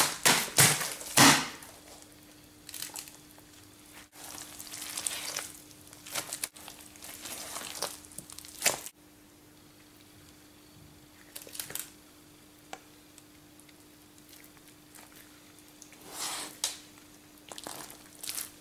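Rubber-gloved hand slapping and squishing a wet, sticky mess: a quick run of slaps at the start, then scattered squelches and rustles, over a faint steady hum.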